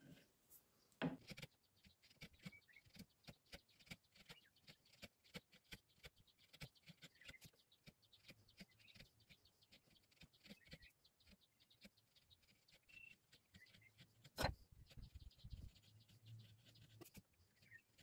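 Near silence with faint scattered small clicks and taps, and two louder sharp knocks, one about a second in and one about three-quarters of the way through.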